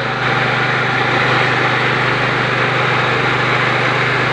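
KD 820 Pro mini rice mill running steadily: a constant low machine hum with the hiss of milled rice pouring out onto its separator screen.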